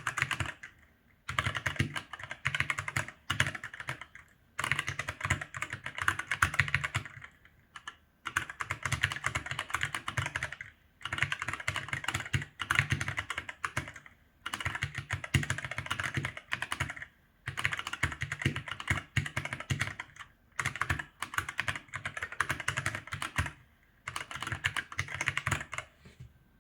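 Typing on an ASUS ROG Falchion NX keyboard with ROG NX Red linear switches: dense runs of rapid keystroke clicks, each run lasting one to three seconds, broken by brief pauses. The typing stops just before the end.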